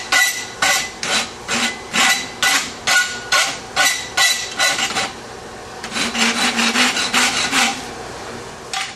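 Hand rasp filing the boss of a forged steel tong half held in a vise, about two strokes a second, the steel ringing faintly with each stroke. About five seconds in, the strokes turn quicker and lighter, then stop shortly before the end. The boss is being rounded into a circle so the tong jaw will articulate.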